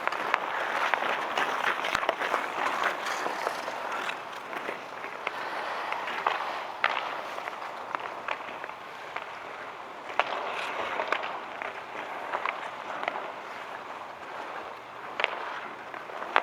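Outdoor ice hockey game: skates scraping across the ice in a steady hiss, broken by sharp clacks of sticks and puck, with crowd noise underneath.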